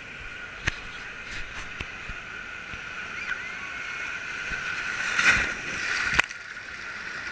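Water sloshing and gurgling amid the steady background noise of a busy water park, with a few sharp knocks; the water noise swells about five seconds in and cuts off sharply soon after.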